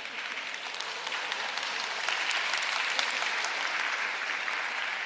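Sumo arena crowd applauding and clapping, swelling about two seconds in.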